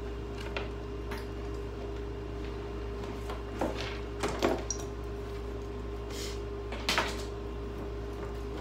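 Scattered knocks and clinks of hand tools on refrigerator parts during demolition, about six separate hits at irregular spacing, the loudest near the end, over a steady electrical hum.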